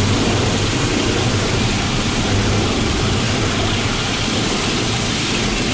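Automatic car wash working over the car, heard from inside the cabin: a loud, steady rushing noise with a low hum under it.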